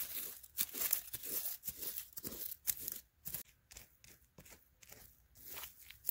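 A plastic toy lion figurine pushed and scraped by hand through dry soil and dead leaves, digging out a hollow: a quick, irregular run of short scratching and rustling strokes, busiest in the first half.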